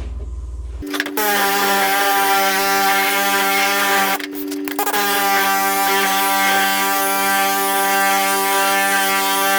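A power sander running on cured body filler, a steady whine with hiss; it starts about a second in, stops briefly around four seconds in and starts again near five seconds.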